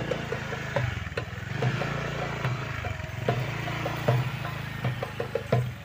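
An engine running steadily at idle, with scattered knocks and clatter over it.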